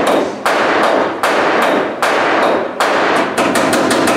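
Hand hammer striking the sheet-steel body panels under the rear quarter of a 1950 Ford, each blow ringing briefly. The strikes come irregularly at first, then a fast run of lighter taps follows about three seconds in.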